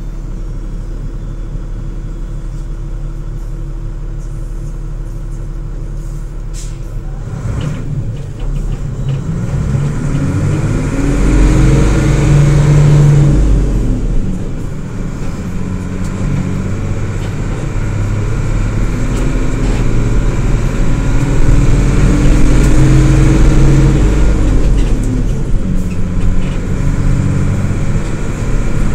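2006 Isuzu LT133P bus's diesel engine idling steadily, then pulling away about eight seconds in, with the engine pitch rising and falling twice as it accelerates through the gears.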